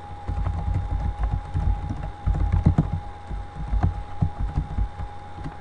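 Typing on a computer keyboard: a quick, irregular run of keystrokes heard as dull low knocks, stopping shortly before the end.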